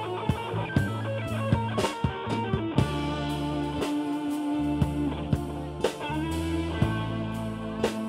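A band playing blues-rock: electric guitar over a bass line, with a drum kit keeping time.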